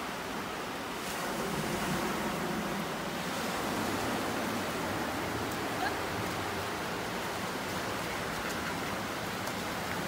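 Small sea waves breaking and washing up a sandy beach: a steady rushing hiss of surf.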